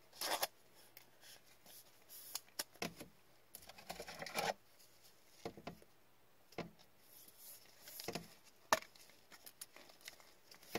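A trading card being handled into plastic: a thin clear card sleeve rustling and a rigid plastic toploader being slid onto the card, heard as short scattered scrapes and rustles with a sharp click near the end.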